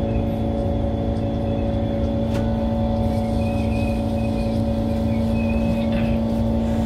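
SMRT Kawasaki C151 MRT train running, a constant steady hum over a low rumble, with a single sharp click about two and a half seconds in and a faint high squeal flickering after it.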